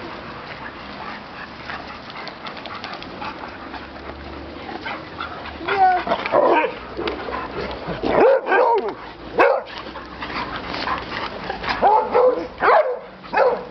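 Several dogs barking and yipping in short, loud bouts from about six seconds in, after a quieter start: dogs greeting their returning caretaker.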